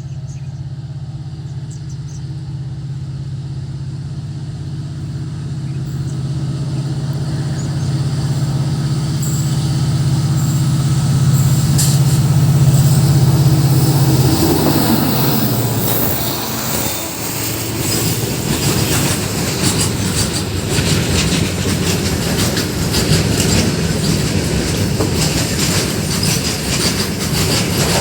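Diesel locomotive approaching with a steady low engine hum that grows louder, then dips in pitch and fades as it passes about halfway through. A train of freight wagons follows, rolling past with a clattering rattle over the rail joints.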